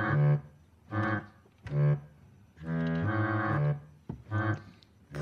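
Organ playing short, steady held chords separated by pauses, with one longer chord about three seconds in.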